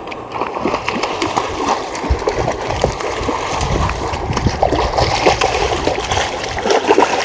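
A hooked catfish thrashing at the water's surface as it is reeled in, making a continuous run of irregular, hard splashes.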